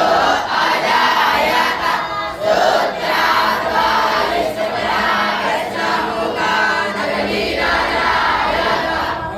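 A large group of voices chanting together in unison, loud and unbroken, with the hum of a crowd beneath it.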